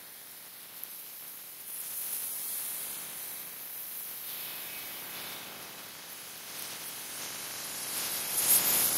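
Business jet with rear-mounted engines on final approach: a faint, even hiss from its engines that swells toward the end as the jet closes in.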